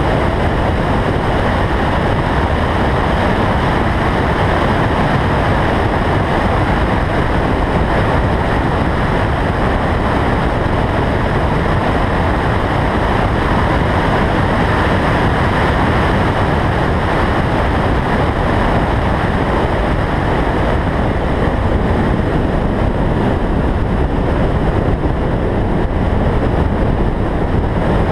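Steady rush of wind over a roof-mounted camera's microphone on a car driving a race circuit at speed, with road and vehicle noise beneath and no distinct engine note standing out.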